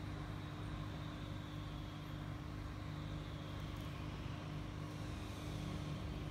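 Steady low mechanical hum with a faint hiss, unchanging throughout; no bird calls stand out.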